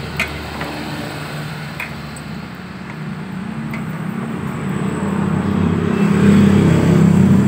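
A motor vehicle engine runs nearby, its low drone growing steadily louder over several seconds and loudest near the end. A few light clicks come in the first few seconds.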